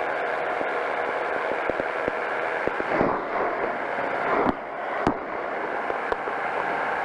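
Powered parachute's engine and propeller running steadily in flight, mixed with wind noise. Several short sharp pops or crackles break through it, the strongest about three, four and a half and five seconds in.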